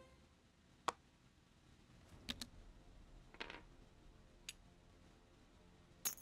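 A handful of faint, sharp clicks and light taps at irregular intervals, two of them close together, over a quiet background.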